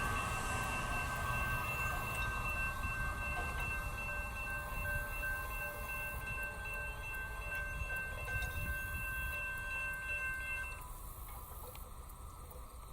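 Intermodal freight train rolling past with a low rumble that slowly fades, while a grade crossing bell rings over it. The bell stops about eleven seconds in.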